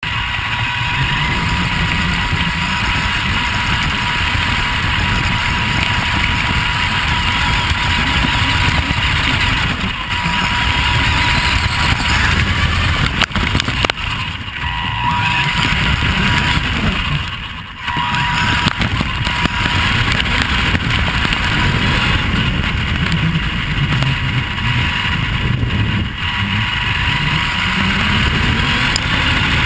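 Vaterra Twin Hammers electric RC rock racer driving over grass and gravel, heard from a camera mounted on the car: drivetrain and tyre noise with wind, over a thin steady high tone. The noise drops briefly a little past halfway.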